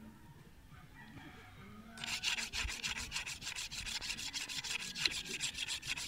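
Machete blade being sharpened on a whetstone: quick, even scraping strokes of steel on stone that start about two seconds in.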